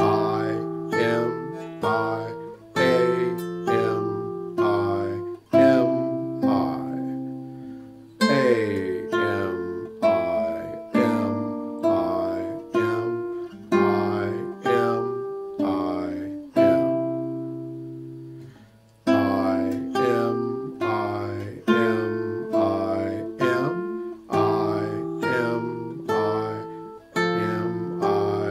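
Classical guitar with a capo at the fifth fret, fingerpicked: a simple piece with a bass line under a melody on top, the notes held so they ring into one another. A little past halfway the playing rests on a held chord that fades out, then starts up again.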